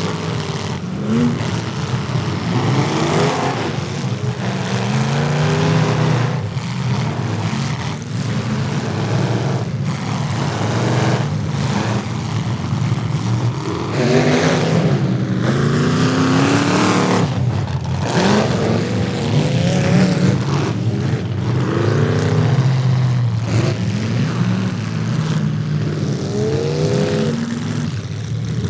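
Demolition derby cars' engines revving up and down over and over, broken by frequent sharp hits as the cars collide.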